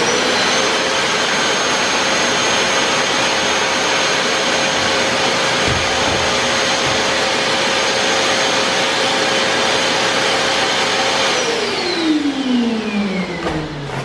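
Schulz Elektro 1400-watt wet-and-dry vacuum cleaner running as a blower, forcing air through its hose into a plastic bag with a steady high whine and a rush of air. About eleven seconds in it is switched off and the whine falls away as the motor winds down.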